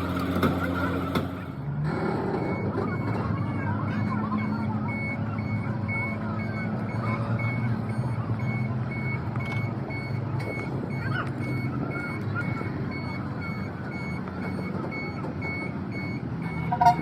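Heavy machine's backup alarm beeping steadily, about two beeps a second, over a low running engine.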